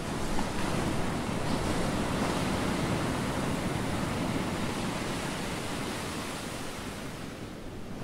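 Ocean surf: small waves breaking and water rushing in a steady wash, easing a little near the end.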